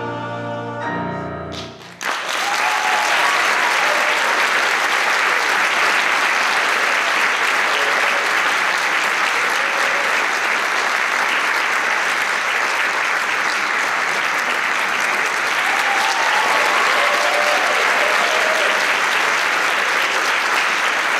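A men's choir holds its final chord, which cuts off about two seconds in. Loud, steady audience applause follows, with a few cheers and whoops.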